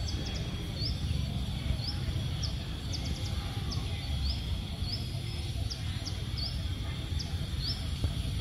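A small bird chirping over and over, short high upward chirps about twice a second, over a steady low outdoor rumble and a faint thin high hum.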